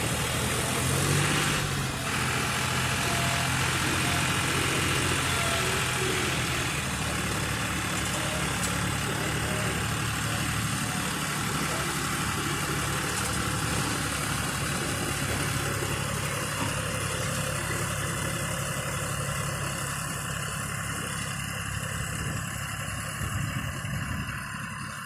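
Heavy vehicle engine running steadily, rising briefly about a second in, then easing off slightly toward the end.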